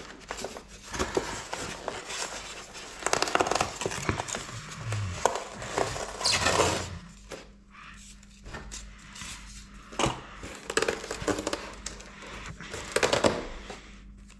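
Plastic wrap and polystyrene foam packing being handled and pulled from a box, crinkling and rustling in irregular bursts.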